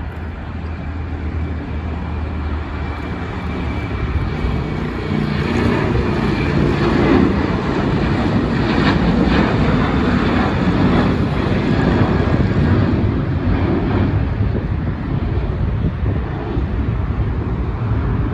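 Twin jet engines of a Boeing 737 in US Air Force executive livery (a C-40) at takeoff power as it lifts off and climbs out. The roar builds over the first several seconds, is loudest around the middle, then slowly fades as the jet climbs away.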